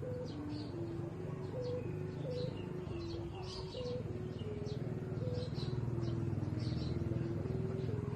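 Thai kite hummer (sanu) with a rattan-leaf ribbon droning in the wind, its tone stepping between a few pitches every fraction of a second over a low buzz. Birds chirp throughout.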